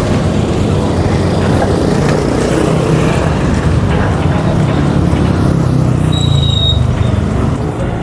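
Road traffic passing close by: the steady low rumble of vehicle engines and tyres, with a brief high squeak about six seconds in.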